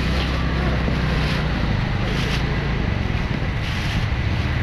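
A steady low mechanical hum, like a running motor or engine, under a constant wash of outdoor background noise.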